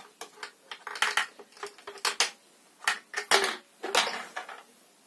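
A dozen or so sharp clicks and knocks from hands handling a Stihl MS 170 chainsaw's housing and covers.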